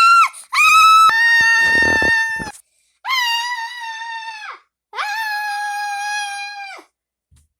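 High-pitched voices screaming in fright: three long, held screams, one after another, then they stop.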